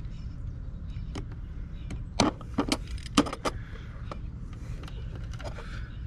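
Utility knife slitting the rubber insulation on a car battery cable: a few sharp clicks and scrapes about two to three and a half seconds in, over a steady low rumble.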